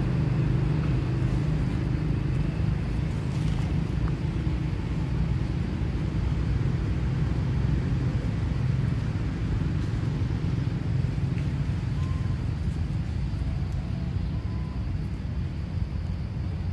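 A steady low rumble with no breaks, with a few faint short high notes in the second half.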